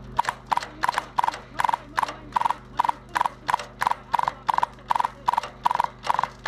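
Regular, evenly spaced clicking, about two and a half clicks a second, over a steady low engine hum.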